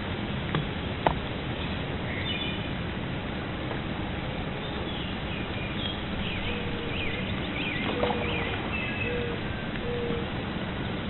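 Birds chirping and calling over a steady outdoor background hiss, with a couple of sharp clicks about a second in and a few short repeated lower notes later on.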